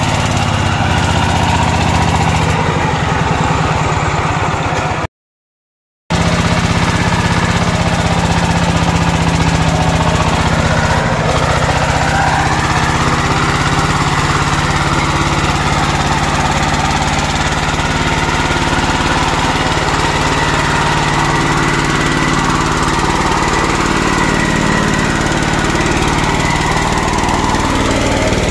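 A công nông two-wheel tractor's single-cylinder diesel engine running hard and steadily while its drive wheels spin and dig in deep mud, the machine stuck. About five seconds in, the sound cuts out completely for about a second.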